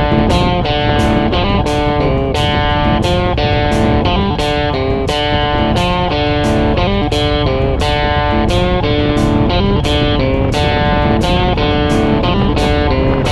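Background music: a guitar-driven track with a steady drum beat.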